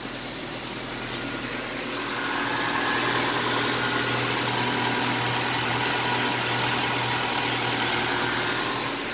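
Honda Civic EF's four-cylinder engine idling steadily on a newly fitted aftermarket TD68 distributor. A few light clicks come in the first second.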